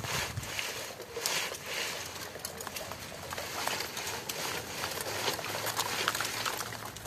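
Irregular rustling and crackling of dry leaf litter and dry palm fronds, with many small snaps.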